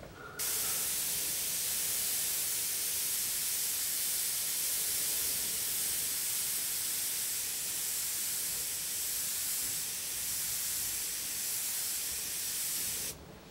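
Gravity-feed airbrush spraying Indian ink: a steady, high hiss of air that starts abruptly about half a second in and cuts off abruptly just before the end.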